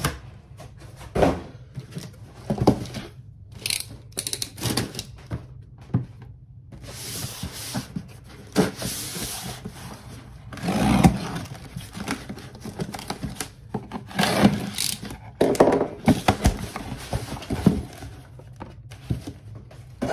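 Cardboard boxes being handled and opened on a tabletop: scraping and rubbing of cardboard with frequent knocks and thuds, the longest scrapes about a third and two thirds of the way through.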